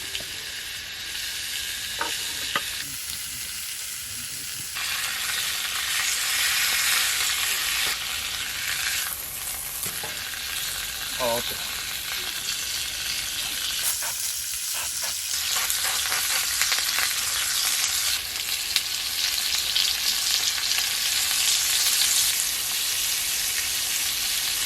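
Food sizzling and frying on a hot cast-iron griddle, a steady crackling hiss that grows louder about five seconds in, with a few light clinks of a utensil.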